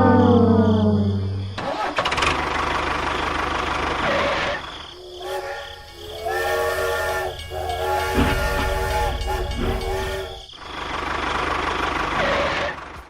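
A vehicle's engine running, with a falling horn-like tone fading out about a second in, then several steady multi-tone whistle or horn blasts in the middle.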